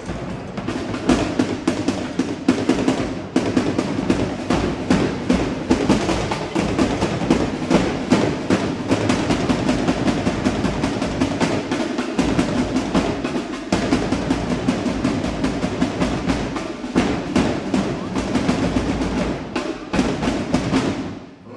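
Marching drum section playing a fast, dense beat that stops just before the end.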